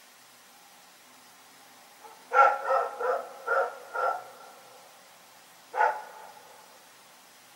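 A dog barking: a quick run of five barks about two seconds in, then one more bark nearly two seconds later.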